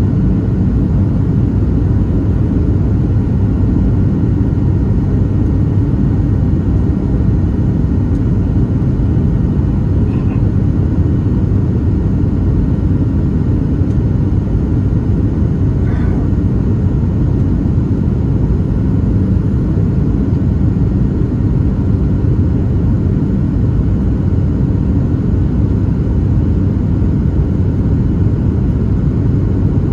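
Steady low rumble inside the cabin of a Boeing 737-700 on its descent to land: the CFM56-7B engines running with the rush of air past the fuselage.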